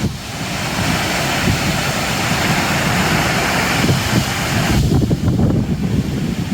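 Lower Düden Waterfall: water rushing as the river plunges off the cliff into the sea, with wind buffeting the microphone in a low, uneven rumble. The rushing hiss cuts off suddenly about five seconds in, leaving the wind rumble.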